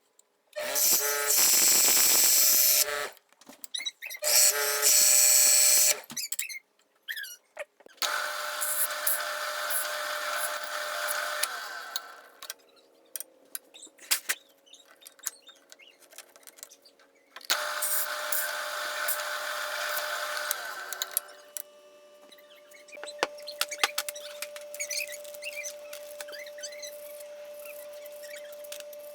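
Workshop power tools running on wood in short bursts: two brief loud runs, then two longer cuts of several seconds each. After that comes a steady motor hum with scattered clicks and taps.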